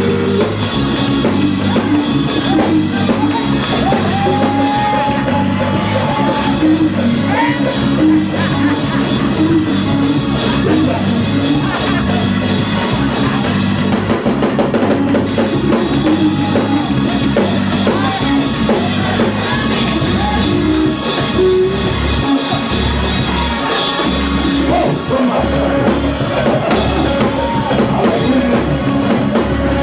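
Live gospel praise-break music: a drum kit and bass keep a steady driving beat, with voices singing over it.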